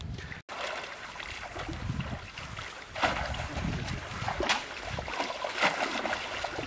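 Shallow stream water splashing and sloshing as men wade through it and push bamboo plunge-basket fish traps down into it, with several sharper splashes in the second half.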